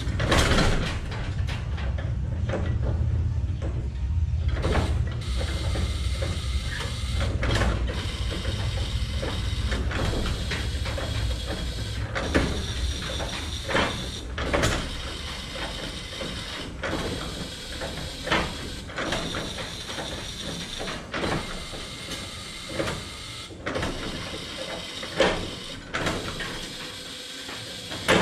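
Irregular metal clanks, taps and rattles of parts and tools being handled on a 1927 Ford Model T's engine bay, with no engine running. A low rumble is underneath, strongest in the first few seconds.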